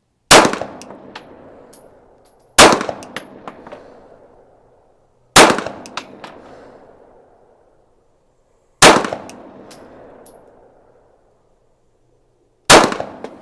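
Five pistol shots from a CZ P-10 F firing 115-grain 9 mm FMJ, spaced two to four seconds apart in slow timed fire. Each is a sharp report with a decaying echo tail and a few light clicks after it.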